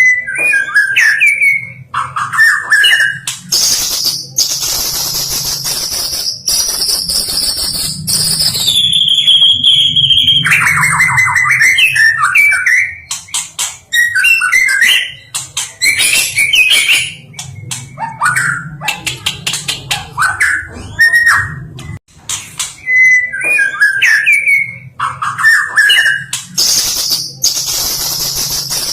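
White-rumped shama (stone magpie, murai batu) singing a varied song of whistles, chirps and rattling trills, with long high held notes, one sliding down in pitch. A faint steady low hum lies under the song.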